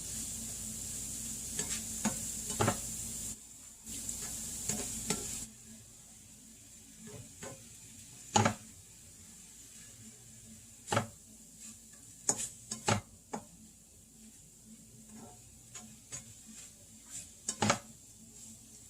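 Ground beef and vegetables sizzling in a frying pan while a utensil stirs and scrapes against the pan, with scattered clinks and scrapes. The sizzle drops off suddenly about five seconds in, leaving it faint under the stirring.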